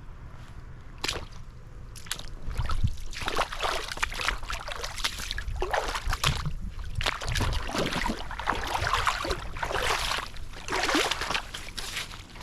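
Water splashing and sloshing as a person wades through a river, in irregular surges that start about three seconds in and keep on.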